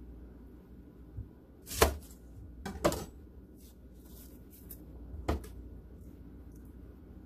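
Large kitchen knife cutting through a red onion onto a plastic cutting board: a few sharp knocks, the loudest about two seconds in, with faint dry rustling of onion skin being peeled between them.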